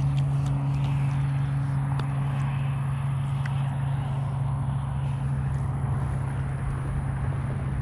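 A steady low motor drone, like an engine running somewhere nearby, with a higher overtone that fades out about two and a half seconds in. A few faint clicks as the baitcasting reel and lure are handled.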